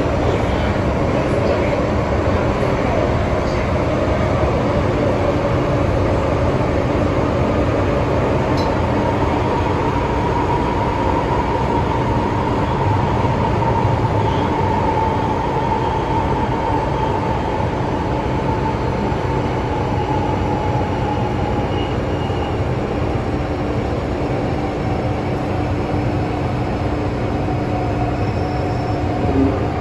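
MTR M-train running on the Tsuen Wan Line: a steady rail and wheel rumble with a high howling whine from its traction equipment. The whine rises a little, then falls slowly in pitch through the middle of the stretch.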